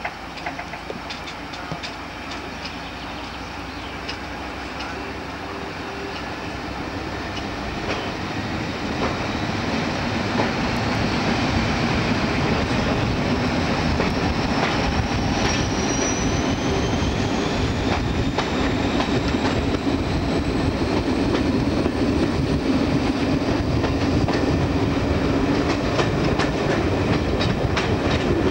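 Diesel-hauled passenger train heard from an open carriage window, the locomotive working hard as the train pulls away, with wheels clicking over rail joints. The noise grows louder over the first ten seconds or so and then holds steady, and a faint high whine rises in pitch partway through.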